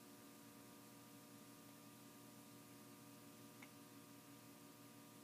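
Near silence: room tone with a faint steady hum and a single faint tick a little past halfway.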